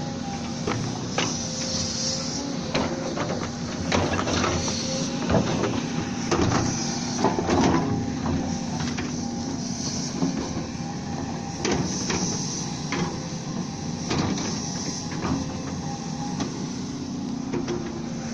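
Volvo excavator's diesel engine running steadily, with frequent sharp metallic knocks and clanks scattered through.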